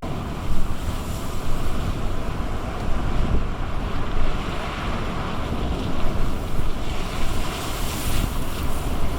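Gale-force wind buffeting the microphone with a heavy rumble, over the rushing wash of storm waves breaking against and over a sea promenade; the hiss of the water swells louder near the end.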